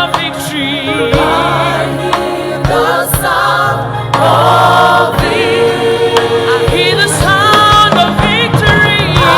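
Gospel choir singing with wavering vocal runs over sustained low instrumental notes.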